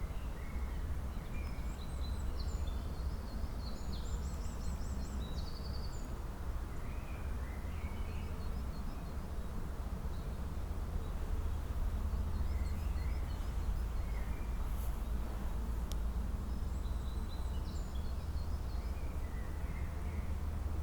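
Several small songbirds chirping and singing in short repeated phrases over a steady low background rumble, with one sharp click about two-thirds of the way through.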